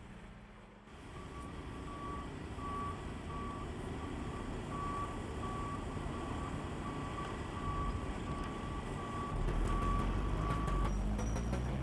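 Concrete mixer truck backing up: its reversing alarm beeps a little over once a second over the running engine. Near the end the beeping stops and a deeper engine rumble grows.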